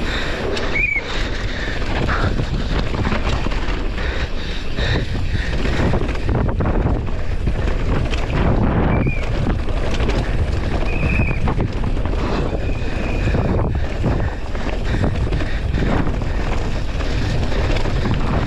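Wind buffeting the camera microphone and a downhill mountain bike running fast over a rough dirt trail, its tyres rumbling over dirt and leaves and the bike rattling over bumps. A few short high squeals sound now and then.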